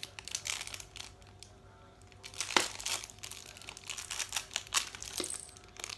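Wrapping on a small L.O.L. Surprise toy package crinkling and tearing as it is pulled open by hand, in a run of short crackles with one sharper, louder crack about two and a half seconds in.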